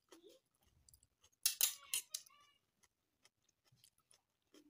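Metal fork scraping and clinking against a metal tray while twirling fried instant noodles, with one loud scrape about a second and a half in that leaves a short metallic ring, and faint clicks around it.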